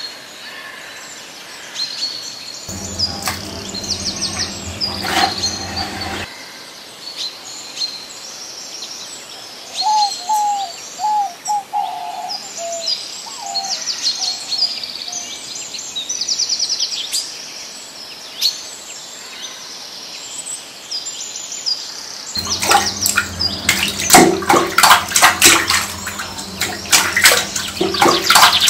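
Small birds chirping and singing with many quick high calls, and a lower, gliding call repeated several times about ten to fifteen seconds in. A steady low hum comes in twice, from about three to six seconds and again over the last six seconds. During that second stretch a run of loud, sharp noises is the loudest sound.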